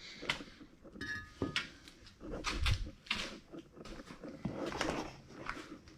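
Irregular knocks, clunks and scrapes of removed car suspension parts being handled and set down, with a brief ringing note about a second in.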